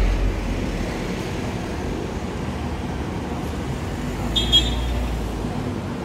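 Road traffic on a busy city street: a steady rumble of passing cars and buses, heavier near the start and again about four seconds in. A brief high squeal comes about four and a half seconds in.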